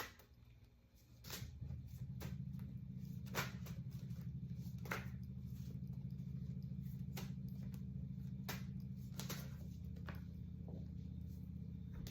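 A steady low hum sets in about a second in, with light, scattered clicks and taps of tarot cards being handled.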